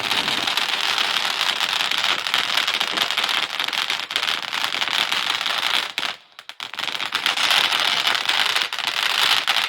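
Ground fountain firework spraying with a dense, continuous crackle, dipping briefly about six seconds in and then cutting off suddenly at the end as it burns out.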